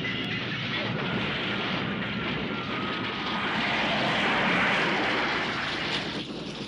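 Film sound effects of a steam train being blown up: a dense rumbling roar of blast and wreckage that swells about four to five seconds in and drops away near the end.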